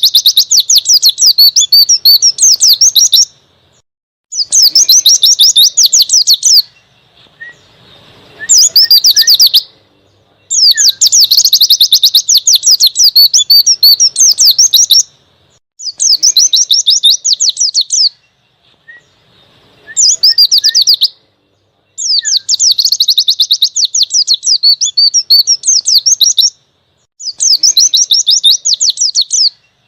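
A white-eye (pleci) singing a rapid, high, twittering 'ngalas' song in loud phrases of two to four seconds, with short pauses between them.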